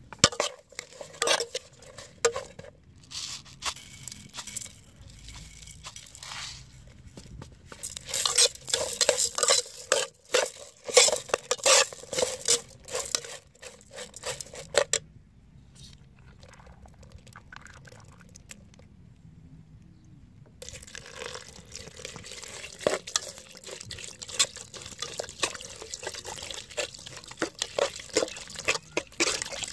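A metal ladle stirs and scrapes sliced bamboo shoots and salt in a stainless steel pot, with irregular clinks of ladle on pot. About two-thirds of the way through, water starts pouring into the pot as a steady hiss, with the ladle still clinking over it.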